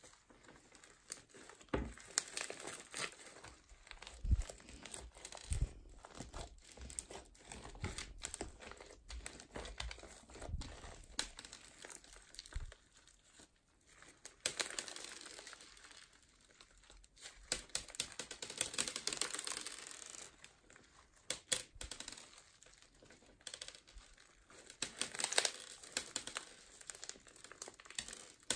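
Hands kneading, squeezing and stretching thick crunchy slime packed with foam beads: an irregular stream of crackles and crunches from the beads, with squishy pops and a few soft thuds.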